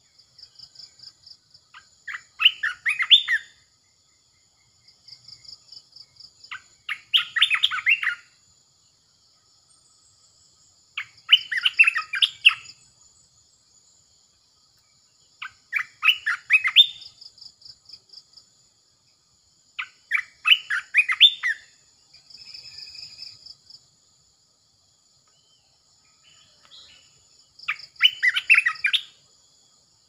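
Olive-winged bulbul singing: six short phrases of quick notes, repeated about every four to five seconds, with a longer pause before the last. A fainter high, fast-pulsing trill sounds between the phrases.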